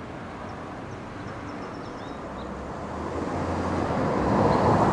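A vehicle passing by outdoors, its noise swelling over a couple of seconds to its loudest near the end, over a low steady hum, with faint bird chirps.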